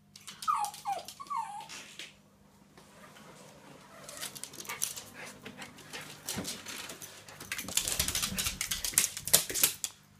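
West Highland White Terrier giving three or four short, falling whines in the first two seconds, agitated by a cat outside the glass door. From about four seconds in comes a long run of quick clicks and scuffles as she scampers about on the hard laminate floor.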